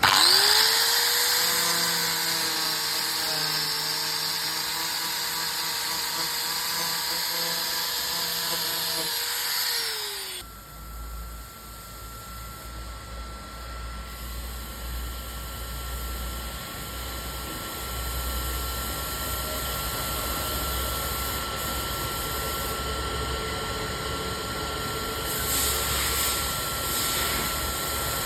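Handheld electric power tool running at speed with a steady whine, spinning up at once and winding down after about ten seconds. A quieter steady hum with a thin constant tone follows.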